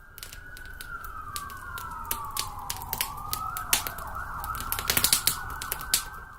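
A single siren-like whistling tone that sweeps slowly down in pitch, then climbs back up with a wavering. Many sharp crackles and clicks are scattered over it, densest in the second half, and it cuts off suddenly at the end.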